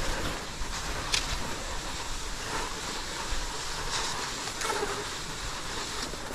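Cross-country skis gliding on a groomed snow track: a steady rushing swish, with a few sharp clicks, one about a second in and another about four seconds in.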